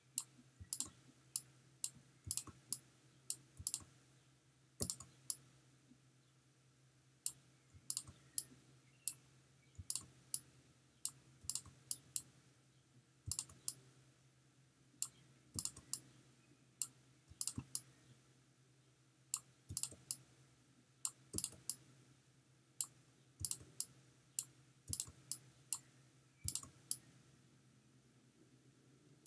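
Computer mouse clicking at an irregular pace, short sharp clicks often in quick pairs, with gaps of a second or two between runs, over a faint steady low hum.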